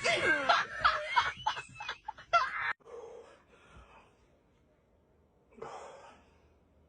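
A person's wordless vocal sounds, loud for about the first three seconds and then dying away, with one short breathy sound near the end.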